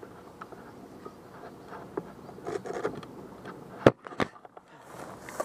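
Faint rustling and handling noise from an airsoft player's gear and footsteps in grass, with two sharp clicks a little under four seconds in.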